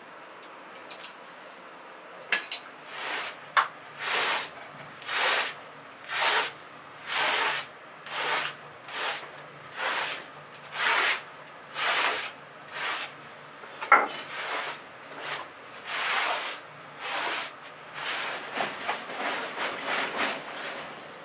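Rhythmic rubbing strokes across a plywood board, about one swish a second, with a couple of sharp clicks among them. Near the end they give way to quicker fabric rustling as a sleeping bag is pulled out.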